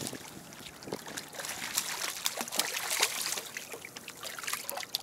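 A hooked fish thrashing at the water's surface as it is reeled in: a run of irregular wet splashes, busiest in the middle.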